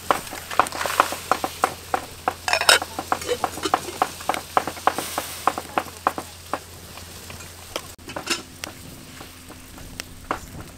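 Wok of dried red chillies heating in water over a wood-fired clay stove: many small sharp pops and crackles, thick for most of the time and thinning out near the end.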